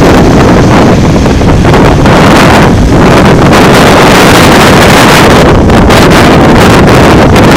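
Wind buffeting the camera microphone, a loud, constant roar that overloads the recording, over cars passing on the street close by.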